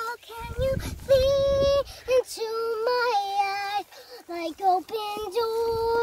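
A young girl singing a melody in a clear, high voice, holding a string of notes of about half a second to a second each with short breaks between them. A low rumble sits under the first two seconds.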